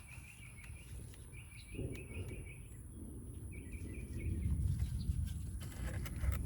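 A songbird repeating a short, rapid chirping phrase three times, over a low rumbling noise that grows louder from about four seconds in.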